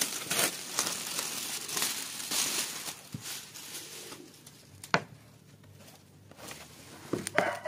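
Old protective plastic film being peeled off a corrugated clear plastic roofing sheet, crinkling and crackling as it comes away. The film has been stuck on for a long time and peels off hard. The crinkling dies down about halfway through, leaving a sharp knock as the sheet is handled, and a rooster starts crowing right at the end.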